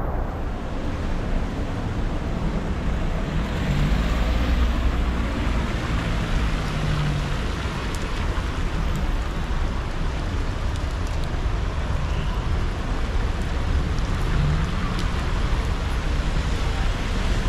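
Traffic passing on a rain-wet city street: a steady rush of car engines and tyres on wet asphalt, with a low engine rumble underneath.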